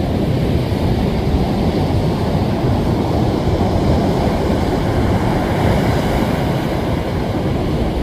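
Ocean surf breaking on a beach: a steady rush of waves with no distinct pauses.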